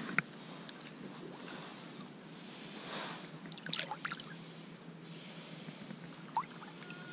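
River water running steadily, with a few splashes about three to four seconds in.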